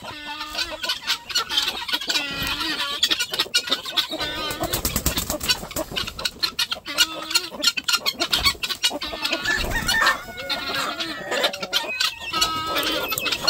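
A penned flock of chickens clucking and squawking, with short calls overlapping throughout and runs of sharp rapid clicks in the middle.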